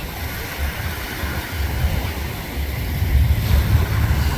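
Wind buffeting the microphone in gusts, with ocean surf washing behind it; the gusts grow stronger about three seconds in.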